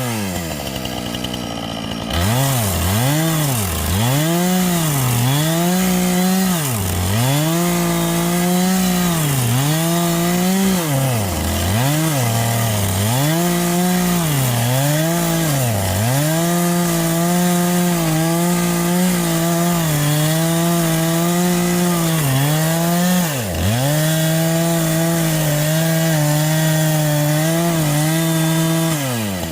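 Husqvarna chainsaw cutting into black walnut. The engine pitch sags and recovers about once a second as the chain bites into the wood and eases off. It then holds a steadier pitch under load, with one more deep sag a few seconds before the end. It runs low for about the first two seconds.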